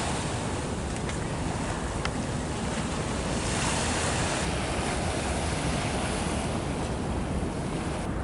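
Steady rushing outdoor noise of wind and water, even throughout, with a couple of faint clicks early on.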